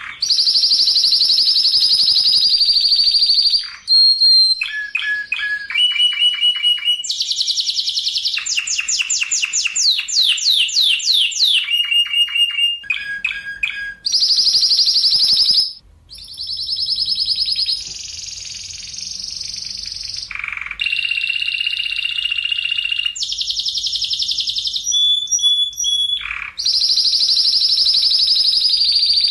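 Spanish Timbrado canary singing a continuous song of tight, rapid rolls and trills. The pattern changes every second or two: high buzzing rolls alternate with lower pulsed notes, and there is a run of swept notes about eight to twelve seconds in.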